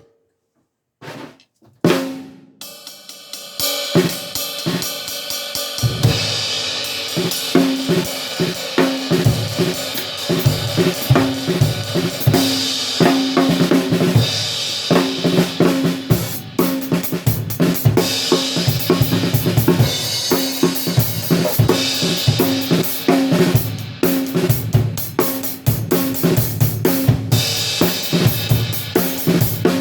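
Drum kit played to try out an 18-inch hand-hammered B20 crash-ride cymbal. A few strikes and one ringing cymbal hit open it, and a few seconds in the full kit settles into a steady groove with the cymbal washing over the top. The player later calls the cymbal's sound kind of dark.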